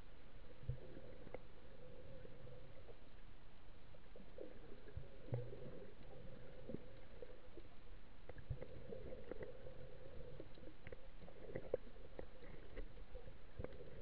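Muffled underwater sound picked up by a camera in a waterproof housing: a steady low murmur of the sea with scattered small clicks and knocks.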